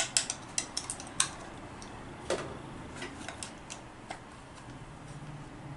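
A 10 mm wrench tightening a lock nut on a motorcycle hand-guard mount, making a run of sharp metal clicks: quick and close together for about the first second, then scattered, with one duller knock a little past two seconds.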